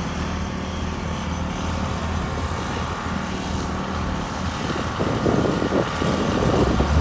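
Diesel construction machinery running steadily, a low engine drone; from about five seconds in, louder irregular clattering knocks come on top.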